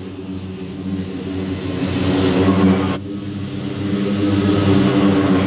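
Scag Cheetah zero-turn mower's engine running as it mows, growing louder as the mower comes closer. The audio is sped up for the timelapse with its pitch corrected, and it jumps abruptly about three seconds in, where the sound drops and then builds again.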